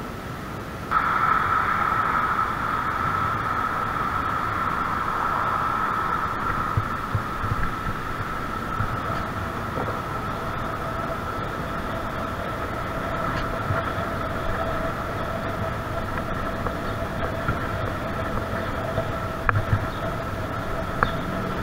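Bicycle riding on a concrete path, heard from a camera mounted on the bike or rider: a steady rolling rumble with a steady whine that comes in suddenly about a second in, a lower whine joining about nine seconds in, and a few sharp ticks near the end.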